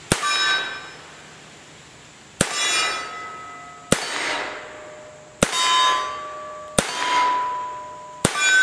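Six shots from a Webley Mk IV top-break service revolver firing .38 Smith & Wesson rounds, about a second and a half apart, the last near the end. Each sharp report is followed by a metallic ringing tone lasting up to a second.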